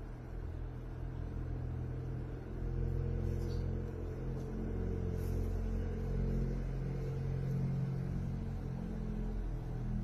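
Steady low rumble of an engine running, a hum made of several steady low tones that gets a little louder about two and a half seconds in.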